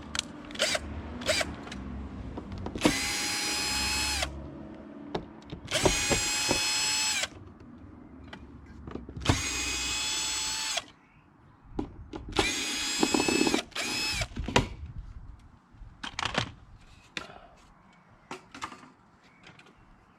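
Power drill running in four short bursts of a steady whine, each about a second and a half long, with clicks and knocks of handling between them and toward the end.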